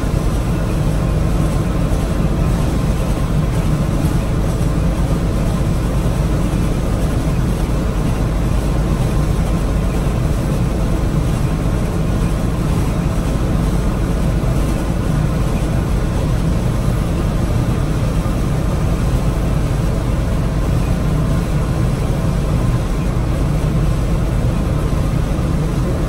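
Gleaner F2 combine running, heard from inside its cab: a steady low engine and machinery drone.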